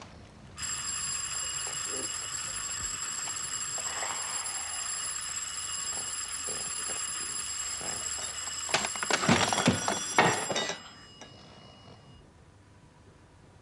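Bedside alarm clock's bell ringing steadily, then several knocks as a hand fumbles at the clock, and the ringing cuts off suddenly about eleven seconds in.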